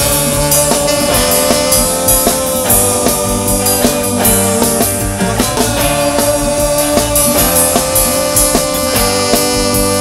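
Live rock band with electric bass, electric guitars and drum kit playing an instrumental passage between sung lines, a lead instrument holding long notes over the steady beat.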